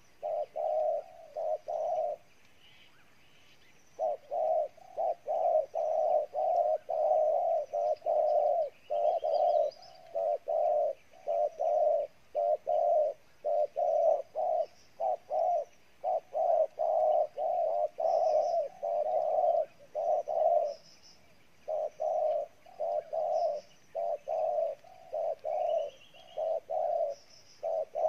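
Spotted dove cooing: a long, rapid series of short, low coos, about two to three a second, breaking off for a couple of seconds near the start and briefly again a little after the middle. Faint high chirps of small birds sound over it.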